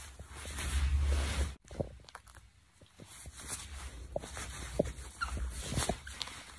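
Rosy-faced lovebird picking at a fleece blanket with its beak: fabric rustling and scattered soft nibbling clicks. A low hum runs under the rustling and stops about a second and a half in.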